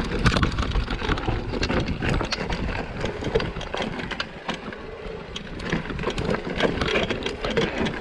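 Mountain bike rattling down a rocky trail: tyres crunching and bumping over rocks, with the chain and frame clattering in many quick knocks over a constant low rumble.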